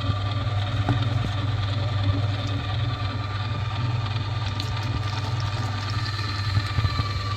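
Electric grinder's motor running steadily: a low hum with a thin, steady whine above it and a few faint clicks.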